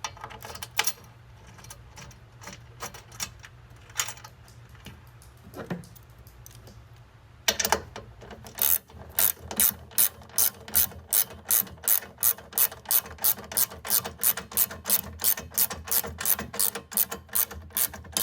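Scattered small clicks and taps of a bolt being threaded in by hand, then from about eight seconds in a ratchet wrench clicking steadily, two to three clicks a second, as it runs the bolt in.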